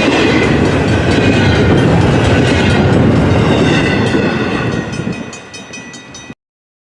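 Cars of a long double-stack intermodal freight train rolling past: a steady loud rumble of wheels on rail with a faint high ringing tone. It fades from about four and a half seconds in, with the clack of wheels over rail joints showing as it dies away, then cuts off abruptly a little after six seconds.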